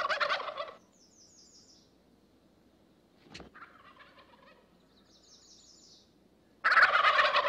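Wild turkey toms gobbling in spring courtship display: a loud rapid gobble right at the start, a fainter one about three and a half seconds in, and another loud gobble near the end.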